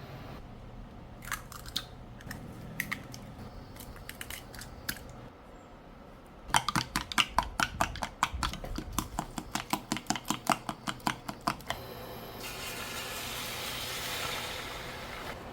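Food being cut in a kitchen: a few separate cutting strokes, then a fast, even run of about four or five strokes a second for about five seconds. Near the end a hiss rises.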